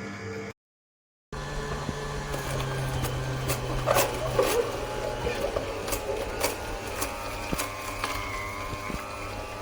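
AMZCHEF cold-press slow juicer running: a steady motor hum with scattered sharp cracks and creaks. The sound cuts out completely for under a second near the start, then resumes.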